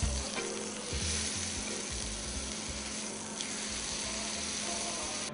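Meat searing in a hot frying pan on high heat, a steady sizzle throughout, with low background music underneath.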